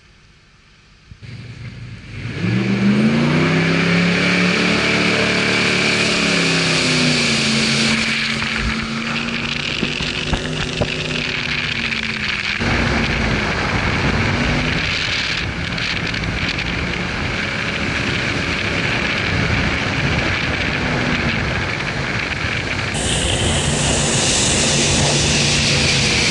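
Jet boat engine revving up and running hard at speed, with the rush of spray and water off the hull. The engine pitch climbs about two seconds in, then swings up and down as the boat runs, and the rushing grows stronger near the end.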